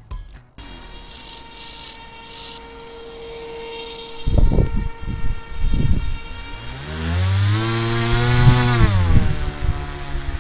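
Motor of a homemade radio-controlled bodyboard boat spinning up about two-thirds of the way in, holding speed, then slowing down near the end, with a rising then falling whine. A few low thumps come before it.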